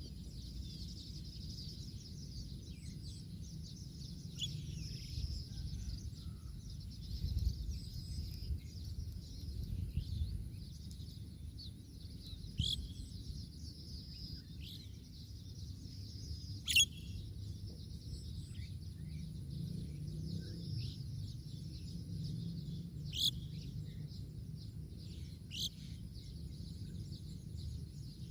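Birds chirping: a steady high twittering with a handful of sharp, short chirps spread through, over a low steady rumble of background noise.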